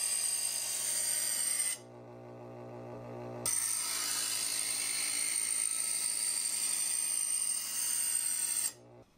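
Chef's Choice Hybrid 250 electric sharpener running while a cleaver is pulled slowly through its stage-one diamond abrasive discs: a steady motor hum under a hiss of steel being ground. There are two grinding pulls with a pause of under two seconds between them, the motor humming on alone, and it is repeated because no burr has formed on the edge yet. The motor stops near the end.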